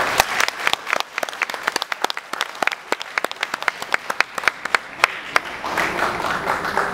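Audience applauding: many individual hand claps, thickening into fuller applause about five seconds in.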